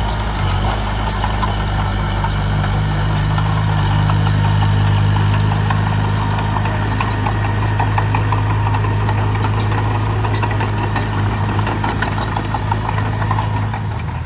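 Mini bulldozer running steadily, with a fast clicking, clattering rattle over the drone; the drone shifts down in pitch near the end.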